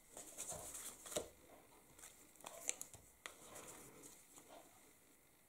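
Faint handling of a paper card panel and a bottle of liquid glue: soft rustles of card stock and a few small clicks and taps, the sharpest about a second in and just past three seconds in.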